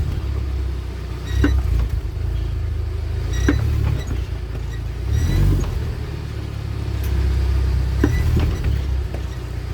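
UAZ Patriot drivetrain running with the rear axle turning: a steady low rumble with a sharp knock every second or two. This is the rear-axle knock being chased, which they trace to play at the pinion shaft.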